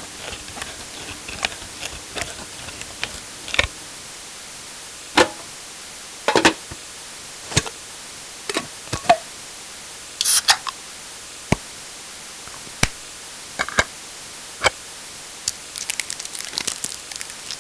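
Irregular sharp clicks and cracks of a metal can or glass bottle being handled, over a steady hiss.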